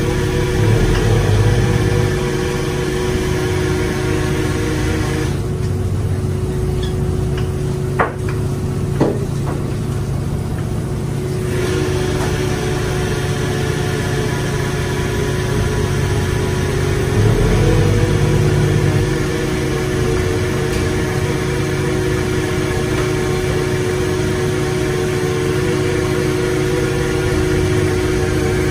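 An engine running steadily, its low rumble swelling for a couple of seconds a little past halfway, with two short knocks about eight and nine seconds in.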